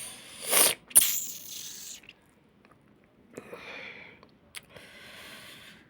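A person's breathy sounds close to the microphone: a sharp, sneeze-like burst about a second in, followed by several softer breathy hisses.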